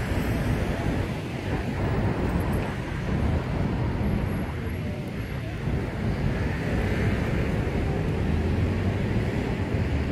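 Wind buffeting the microphone in an uneven low rumble, over a steady hum of city street traffic.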